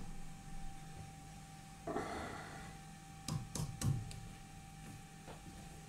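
Lathe tailstock slid along the bed and clamped in place: a short scraping slide about two seconds in, then a few sharp metal knocks, over a steady faint hum.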